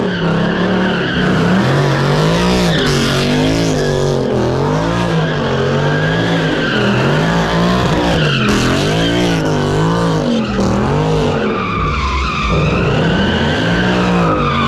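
A car doing donuts: its engine revving up and down over and over, about once a second, with tyres screeching on the pavement.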